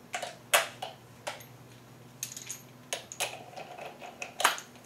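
Light metallic clinks and taps, about a dozen at irregular spacing, as the threaded rod, washers and fittings of a coil spring compressor are handled and knocked together.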